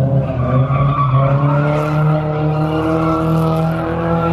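A car doing donuts: its engine held at steady high revs while the tyres squeal and skid on the pavement.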